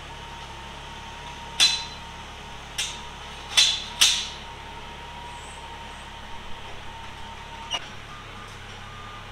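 Four sharp metal clanks in the first half, with a steady whine and hum running beneath; the whine cuts off with a click near the end, and a forklift's reversing alarm starts beeping faintly.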